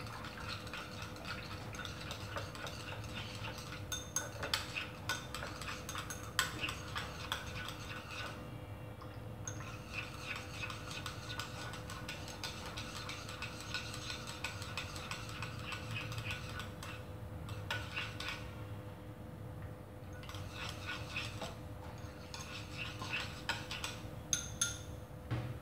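Chopsticks stirring gelatin soaking in water in a small ceramic bowl, with many light, irregular clicks and scrapes against the bowl. A faint steady hum runs underneath.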